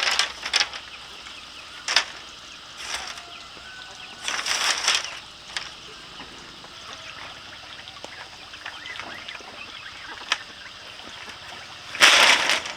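Scattered sharp knocks and clicks, with three short bursts of rustling or scraping noise, one about four and a half seconds in and one near the end.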